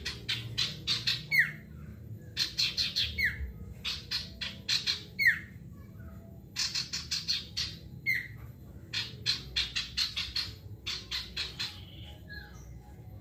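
Male sirtu singing in rapid-fire bursts: quick runs of sharp chattering notes, each run ending in a single downslurred note, repeated about five times.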